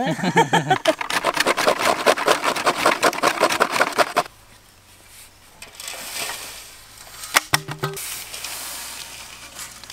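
Dry coconut half being scraped on a turamani, a traditional hand coconut grater: rapid, rhythmic grating strokes that stop after about four seconds. Softer scraping and a couple of sharp knocks follow.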